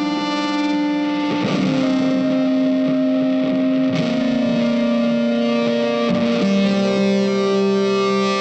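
Background music led by a guitar with an effects sound, long held notes that change every two or three seconds.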